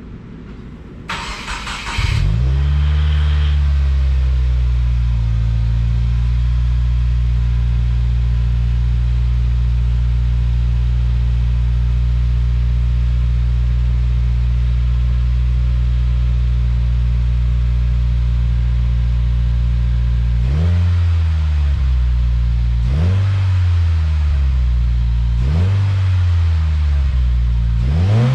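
2016 Subaru WRX 2.0-litre turbocharged flat-four starting through an STI SPT cat-back exhaust with a catted Cobb J-pipe and stock headers. It cranks briefly about a second in, catches, flares and settles to a steady idle. Near the end the throttle is blipped four times, each rev rising and falling quickly.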